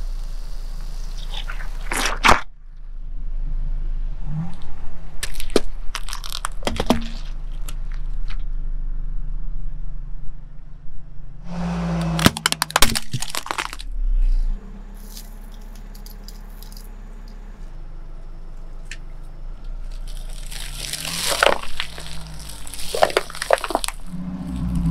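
A car tyre rolling over and crushing things, heard as a series of sharp cracks and crunches in several clusters. It opens with the hiss of a sparkling firework fountain stuck in a watermelon, cut off by a loud crack about two seconds in, and later brittle plastic cassette tapes crack under the wheel. A low steady hum runs underneath.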